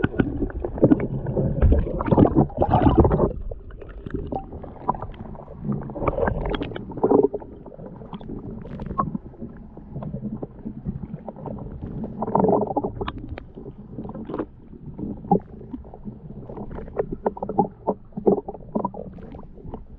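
Choppy water slapping and sloshing against the plastic hull of a Hobie Compass kayak, under a constant low rumble, with scattered knocks and clicks throughout and louder sloshing stretches a couple of seconds in, around six seconds and around twelve seconds.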